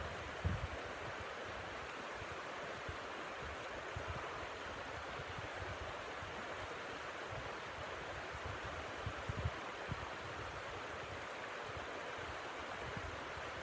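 Steady blizzard wind, a constant rushing hiss, with brief low buffets of wind against the microphone about half a second in and again around nine seconds.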